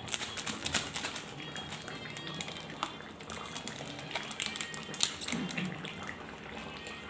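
Chicken curry simmering in a kadai, bubbling with an irregular run of small pops and clicks.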